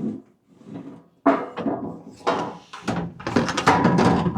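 Sheet-metal tool cabinet being pushed forward and out of its outer cabinet: metal clunks and scrapes, starting with a sudden knock just over a second in and running on in rough stretches.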